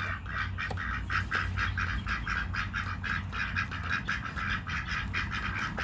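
Ducks giving a rapid, steady run of short nasal quacks, about four or five a second.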